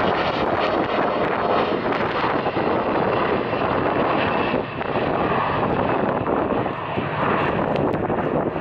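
Jet engine noise from a Fuji Dream Airlines Embraer E-Jet's two CF34 turbofans at takeoff thrust as the regional jet accelerates down the runway. It is a loud, steady rushing noise that eases slightly in the second half.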